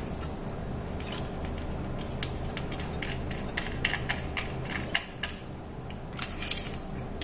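Irregular small metallic clicks and scrapes as a laptop hard disk's metal parts are handled and worked with a small screwdriver during disassembly.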